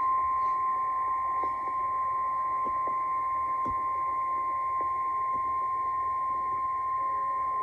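Emergency alert attention signal: a single steady high tone, the 1050 Hz NOAA Weather Radio warning alarm, held without a break. It marks that an urgent weather warning, here a tornado emergency, is about to be read.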